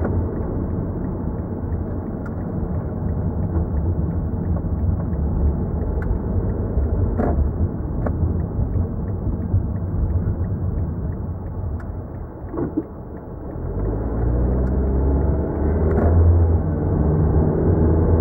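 Car engine and road noise heard from inside the cabin while driving. The noise drops as the car slows about twelve seconds in. It then comes back louder, with a steady engine hum, as the car pulls away.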